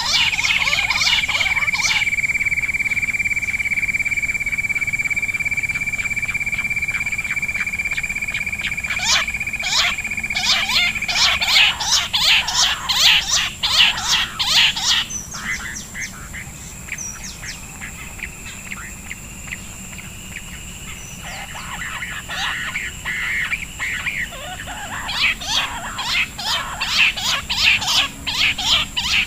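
Bush quail calling: rapid, harsh chattering calls in dense bursts, thinning out in the middle and building again near the end. A steady high whine runs under the first ten seconds or so.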